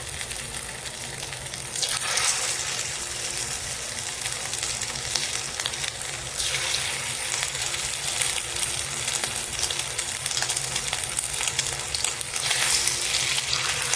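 Batter-coated fish pieces shallow-frying in hot coconut oil in a pan, a steady crackling sizzle that grows louder about two seconds in and again near the end as more pieces go into the oil.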